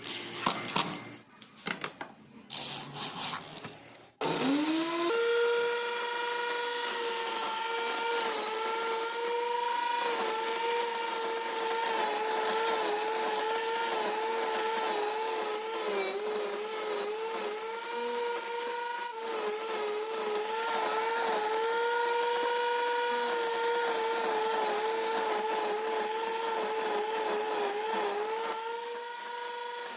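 A few irregular knocks of handling, then an electric power tool's motor spins up about four seconds in and runs on with a steady whine. Its pitch sags and wobbles at times as it works into wood.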